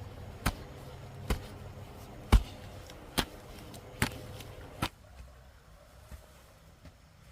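A row of sharp knocks at an even pace, a little more than one a second, the loudest near the middle, stopping about five seconds in.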